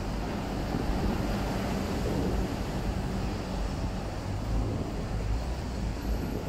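Busy city street ambience: a steady low rumble of passing road traffic.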